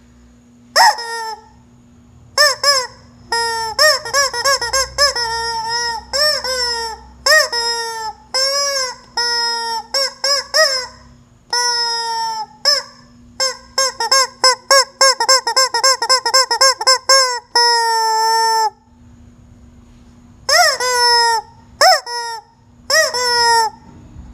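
A chicken making loud, repeated squawking calls, each rising then falling in pitch. They come in irregular runs, with a fast string of calls past the middle, one longer held call, a pause, and a few more near the end.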